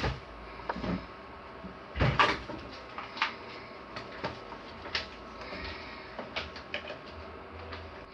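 Handling knocks and clicks from a hair dryer and its cord being picked up and worked by hand. There is a sharp knock at the start, a louder cluster about two seconds in, then lighter scattered clicks. The dryer's motor is not running.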